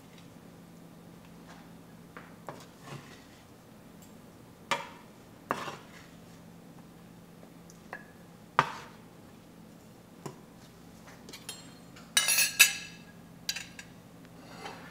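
Dishes and cutlery being handled: scattered single clinks and knocks, then a louder, longer clatter of crockery near the end.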